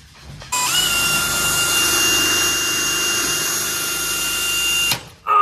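Cordless drill with a hole saw boring through a wooden board: the motor spins up about half a second in and runs steadily under load with a high whine, then stops near the end.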